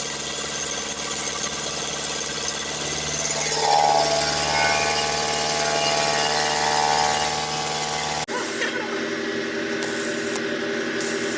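Nissan Altima engine running with an exhaust leak from a cracked exhaust manifold, a little louder from about four seconds in. The sound cuts off suddenly about eight seconds in, leaving a quieter steady hum.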